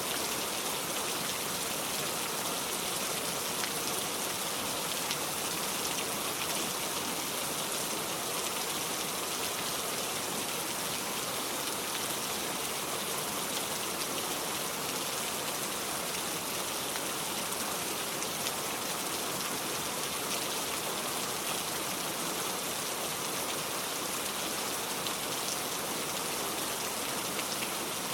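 Steady rain falling, an even hiss of many drops with no breaks.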